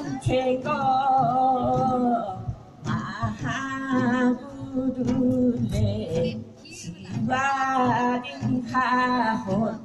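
Voices singing unaccompanied, a series of long held, slightly wavering phrases with short breaks between them.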